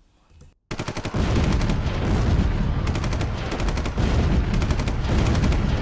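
Battle sound effect of rapid machine-gun and rifle fire, many shots a second, starting about a second in and cutting off suddenly at the end.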